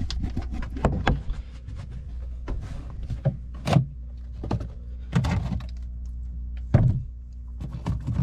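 Plastic oil bottles and a plastic jug being lifted out of a fiberglass boat locker and set down: irregular hollow knocks and clunks, about ten of them, over a steady low hum.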